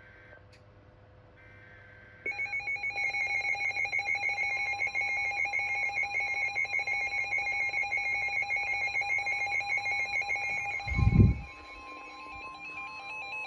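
Electronic emergency alert tone from an alert receiver. It starts suddenly about two seconds in as a loud, rapidly warbling tone. A heavy thump comes near the end, and after it the tone goes on more quietly until it stops.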